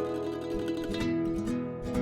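Background music: plucked acoustic guitar notes ringing over sustained chords.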